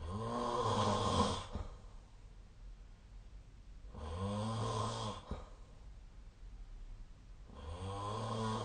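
A sleeping person snoring: three low, droning snores about four seconds apart, each a little over a second long.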